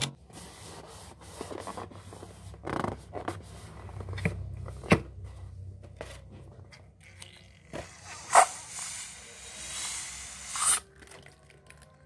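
Rubber balloons being handled, with rubbing and scraping, scattered sharp clicks and two louder snaps about five and eight seconds in, then a longer hissing rub near the end.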